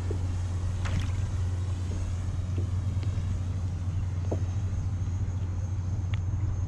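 Steady low rumble of wind buffeting the microphone, with a few faint light ticks, likely small water slaps against the plastic kayak hull.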